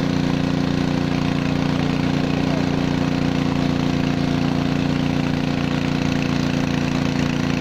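Small Robin petrol engine of a portable fire-fighting water pump running steadily at constant speed.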